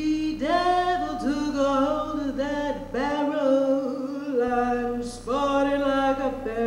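A woman singing unaccompanied into a microphone: three phrases of long, held notes with short breaks between them.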